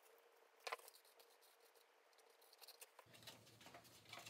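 Near silence with a few faint clicks and taps of hands working on a foam-board wing, one sharper click a little under a second in; a faint low hum of room tone comes in about three seconds in.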